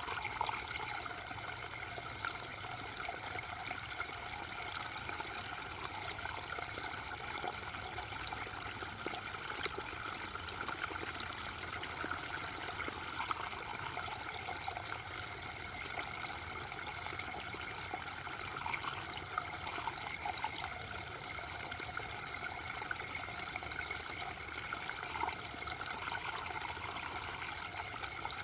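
Gentle waterfall: water falling and splashing in a steady, unbroken rush.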